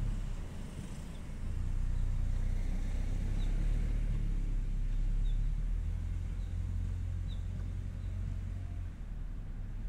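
Low outdoor rumble, swelling about a second and a half in and easing near the end, with a few faint, short, high chirps scattered through it.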